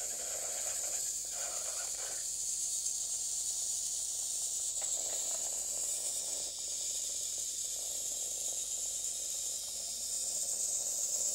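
Small geared DC drive motors of an Arduino robot car whirring in short runs as it drives and turns across a wooden floor, over a steady high hiss.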